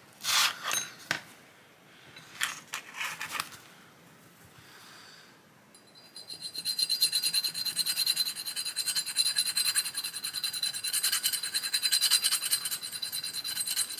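Steel needle files clinking in their pouch as one is picked out. From about six seconds in, a needle file rasps in quick short strokes against the steel Carcano rifle bolt, with a thin steady ring over the strokes, filing off a small lip on the bolt.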